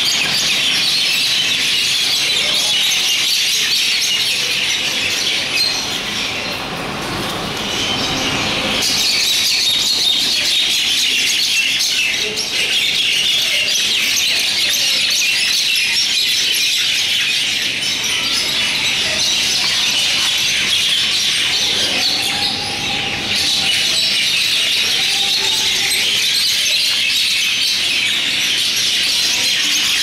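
Mynas chattering in a dense, continuous high-pitched chorus of overlapping squeaky calls, easing slightly for a few seconds twice.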